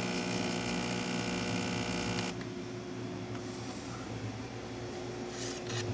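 DeLonghi espresso machine's freshly replaced vibratory pump buzzing steadily as it pulls a shot, then cutting off abruptly a little over two seconds in; a faint steady hum remains. The pump is running smoothly after its repair.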